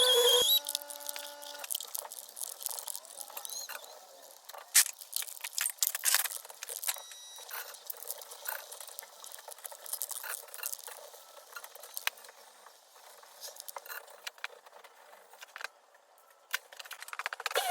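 Irregular metallic clinks, clicks and short rattles, like hand tools and loose metal parts being handled.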